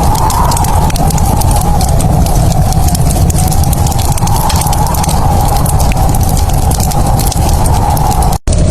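Fireplace fire crackling with dense, sharp snaps over a steady low rumble. The sound cuts out for a split second near the end.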